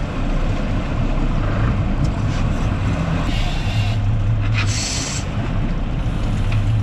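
Boat engine running steadily with a low drone, under wind rushing on the microphone. A short hiss about five seconds in.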